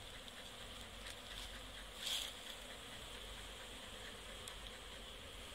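Indian honeybees (Apis cerana indica) buzzing steadily around an opened hive that is being smoked to calm them, with one brief louder hiss about two seconds in.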